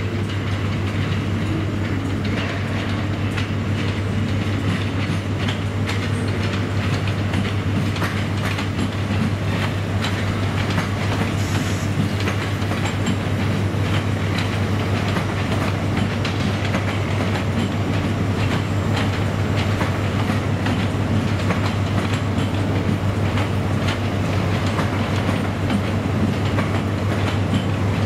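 LNER Azuma train (Hitachi Class 800/801) rolling through station pointwork: wheels clicking steadily over rail joints and crossings, with a constant low hum underneath.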